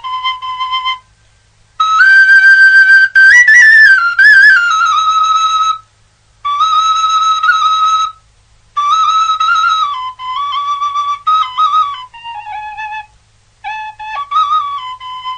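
Background music: a solo flute playing a slow melody of long held notes, in phrases separated by short pauses, with small wavering ornaments on some notes.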